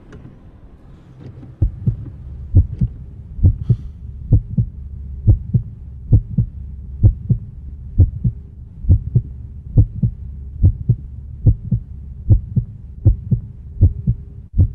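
Heartbeat, a steady lub-dub double thump repeating a little faster than once a second, starting about one and a half seconds in over a low steady hum.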